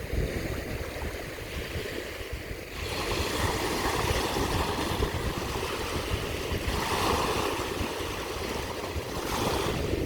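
Sea waves washing onto the shore. The surf hiss swells about three seconds in and surges again twice toward the end, over a low uneven rumble of wind on the microphone.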